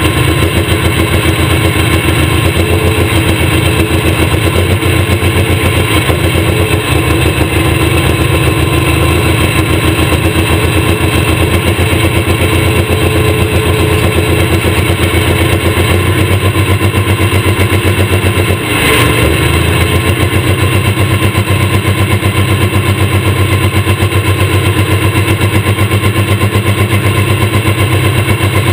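Case IH Pro Stock pulling tractor's turbocharged diesel engine idling loudly with an even pulse, heard from the driver's seat, with a brief dip in the sound about nineteen seconds in.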